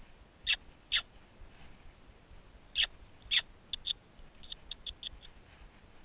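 Small wild songbird calling: two pairs of sharp, loud calls, then a quick run of shorter, softer notes.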